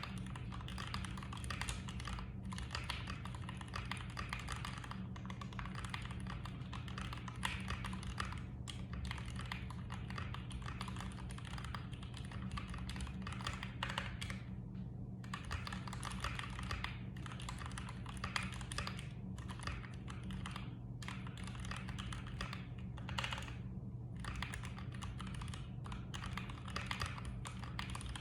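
Mechanical keyboard with Krytox 205g0-lubed Gateron Ink Black V2 linear switches being typed on in quick, continuous runs of keystrokes, with a few short pauses. A steady low hum lies underneath.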